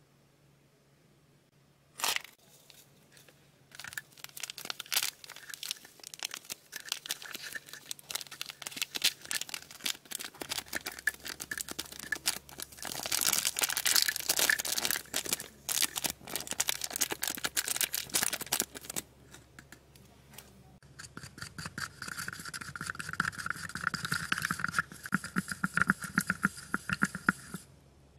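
A foil candy-kit powder packet crinkling and tearing, a sharp snap near the start, as its powder is tipped into a plastic cup of water. Near the end a chopstick stirs briskly in the cup in a fast, even run of clicks.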